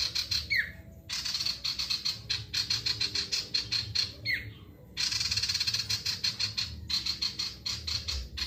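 Male common iora (sirtu) singing in full rapid fire: trains of quick harsh notes, about eight a second, broken by short pauses, with a short falling whistled note near the start and another about four seconds in.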